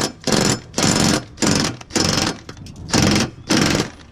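Impact wrench hammering on a mower-deck blade bolt in a string of short bursts, about eight, roughly half a second apart.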